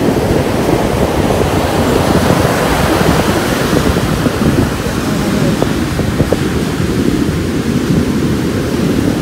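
Surf and wind blowing across the microphone: a steady noise, heaviest in the low end.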